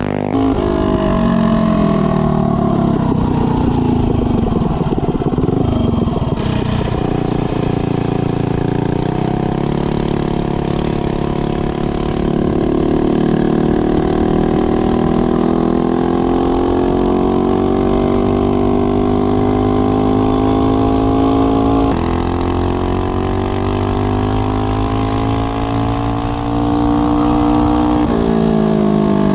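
Mega Moto 212cc minibike's single-cylinder four-stroke engine on a ride. The engine speed drops and picks up again over the first few seconds, then climbs slowly and holds at a steady cruise. Near the end it eases off briefly and rises again.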